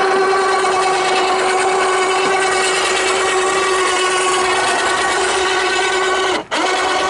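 12-volt electric winch motor running steadily with a high whine, winding its cable to haul a load up a track. It stops briefly near the end and starts straight up again.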